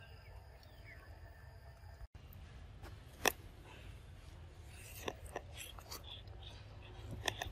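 Scattered faint clicks and crackles from a macaque handling food and a paper milk carton, with one sharper click about three seconds in and a few more near the end, over a low steady rumble.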